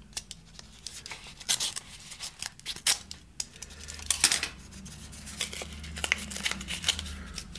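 Snap-off utility knife blade slitting along the edge of a kraft paper envelope, then the stiff paper crackling and tearing as the envelope is pulled open by hand. It comes as uneven scraping strokes rather than one steady cut.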